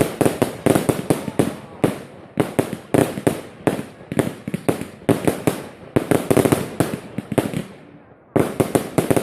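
Fireworks going off in rapid succession, several sharp bangs a second, with a brief pause shortly before the end before the bangs resume.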